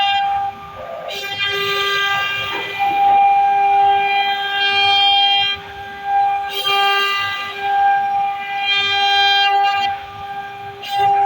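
CNC router spindle running at a steady high whine, with the noise rising and swelling in surges as the bit cuts into wood.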